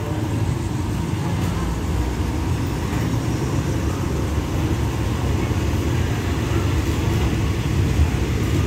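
Passenger train starting to pull out of the station: the coaches roll slowly past the platform with a steady low rumble that builds slightly.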